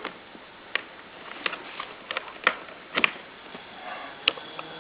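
Scattered small clicks and taps from handling a USB plug and cable being plugged in. Near the end, a faint steady whine as a small CPU cooler fan, wired to USB, starts to spin.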